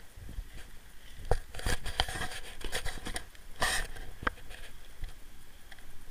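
Footsteps and rustling handling noise from a camera carried on foot: a run of sharp clicks and scrapes, with a short rustling burst about two thirds of the way through.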